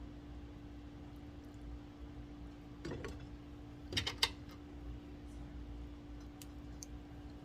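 A few sharp clinks of a utensil against glass canning jars while hot brine is ladled in and worked down: a couple about three seconds in, then two louder ones about a second later, with faint ticks after. A steady low hum sits underneath.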